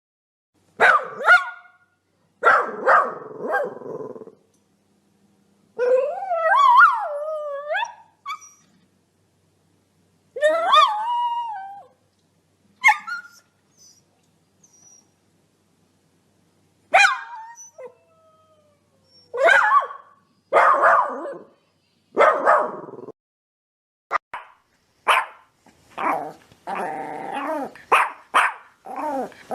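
A dog barking in separate bursts with silence between them. Twice it gives longer calls that slide up and down in pitch, like a howl, and near the end it barks in a quick run of short barks.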